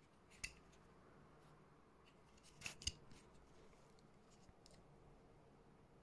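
Faint clicks from handling a Trayvax Contour wallet's stainless-steel frame and leather strap: one sharp click about half a second in, then a short rustle ending in two sharp clicks near the middle, and a few faint ticks after.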